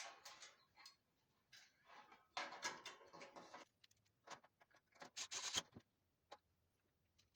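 Faint, scattered clicks, knocks and rustling of hands handling and fitting the plastic parts of a gas fan heater during reassembly, with the sharpest clicks about five seconds in.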